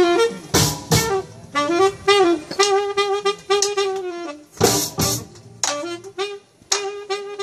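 Live jazz band: a saxophone plays a riff of short repeated notes with sliding phrases, over drum kit and candombe barrel drums, punctuated by several sharp accented drum and cymbal hits.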